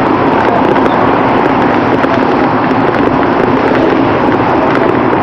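Steady wind and road noise on a bicycle-mounted camera's microphone while riding beside passing car traffic, dotted with frequent small clicks and crackles.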